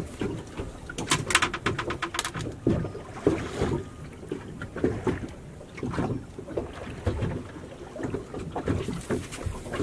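Water slapping irregularly against a boat's hull, with some wind on the microphone. About a second in, a quick run of sharp clicks lasts about a second.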